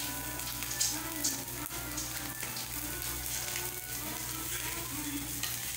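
An egg-and-cheese skillet pie frying in a nonstick pan, with a steady sizzle full of small crackles. Faint music plays in the background.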